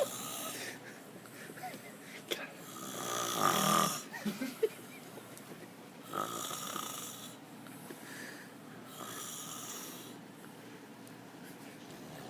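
A drunk man snoring in his sleep, four snores about three seconds apart. The loudest comes about three and a half seconds in.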